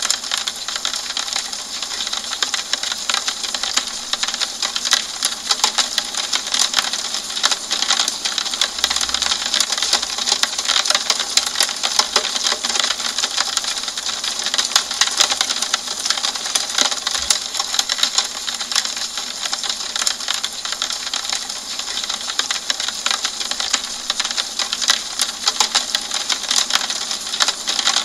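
Steady rain falling on a window pane: a dense, continuous run of small drop ticks over an even hiss.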